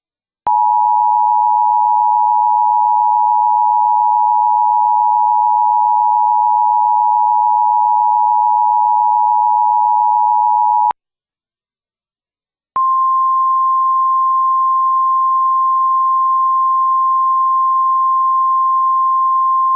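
Emergency Alert System attention signal: a steady electronic two-note alert tone held for about ten seconds and cutting off sharply. After about two seconds of silence, a second steady single alert tone, slightly higher in pitch, starts.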